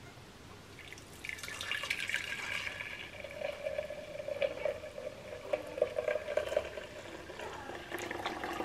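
Thin custard mixture of milk, sugar and egg yolks being poured through a metal mesh sieve into a stainless steel pan, a steady trickle that starts about a second in.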